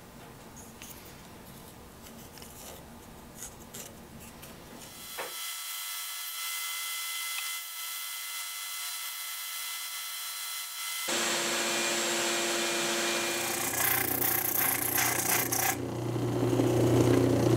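Woodworking machines in turn: a few seconds of light scraping and handling sounds, then a band saw running and cutting a piece of oak, then a shop-made disc sander running, louder, with wood pressed against the disc near the end.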